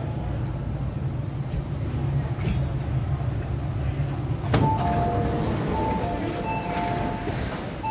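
Low rumble of an MTR East Rail Line R-Train at the platform. About four and a half seconds in there is a sharp knock, then a run of repeated two-tone door warning beeps.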